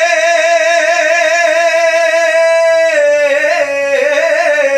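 Kavishari ballad singing: a voice holds one long, high note with a steady vibrato, then steps down to a lower, wavering note about three seconds in.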